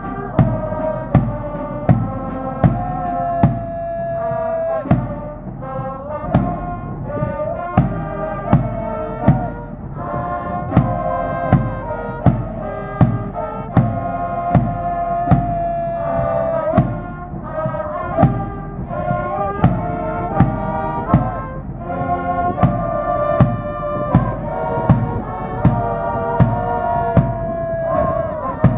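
Cheering-squad brass band playing a cheering song: trumpets carry the melody in long held notes over a drum struck on a steady beat, about three strokes every two seconds.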